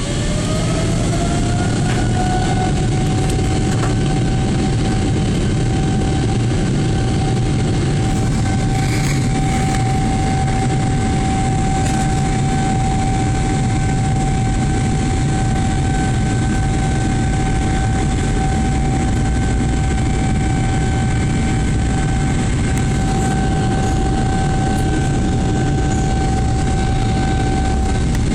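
Boeing 777-300's jet engines spooling up: a whine rises in pitch over the first two seconds, then holds steady at high power over a loud, continuous rumble of the airliner rolling, heard from the cabin.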